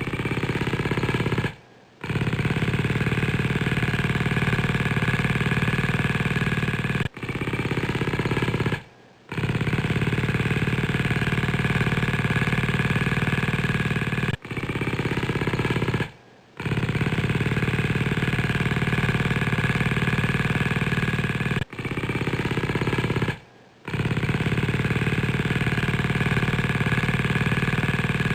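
Motorcycle exhaust running steadily with a fast, even firing beat. The same stretch repeats about every seven seconds, each time cutting out for about half a second before coming back.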